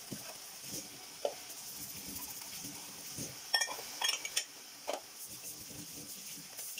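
Tap water running steadily into a stainless steel sink while dishes are washed and rinsed, with a short run of sharp, ringing clinks of dishes and cutlery about halfway through.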